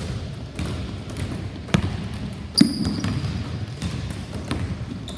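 Basketballs thudding on a hardwood gym floor and smacking into hands as several players pass at once, in scattered irregular knocks. A short high squeak comes with the loudest knock about two and a half seconds in.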